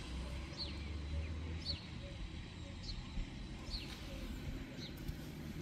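A bird calling over and over: short downward-sliding chirps, about one a second, over a low steady rumble.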